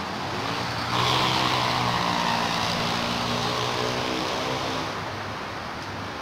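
A motor vehicle's engine running past: it grows louder about a second in, holds a steady low engine note, and fades after about four seconds.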